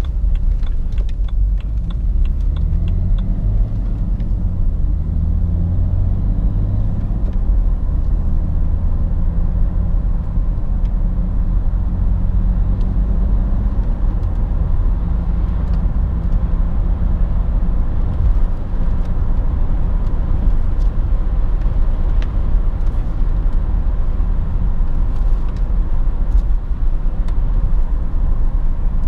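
The BMW 330xd's six-cylinder diesel heard from inside the cabin, its engine note climbing over the first several seconds as the car pulls up through the revs. It then settles into a steady cruise under constant low rumble from the engine, tyres and road.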